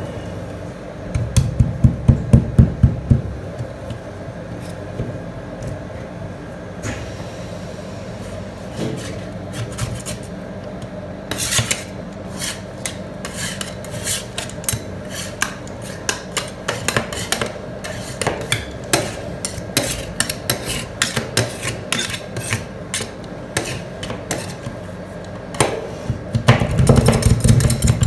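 Two metal ice-cream scrapers chopping and scraping on a frozen steel rolled-ice-cream pan, cutting chocolate into the cream base. There is a quick run of blade taps on the metal about a second in, then scattered taps and scrapes from about halfway on, over a steady low hum.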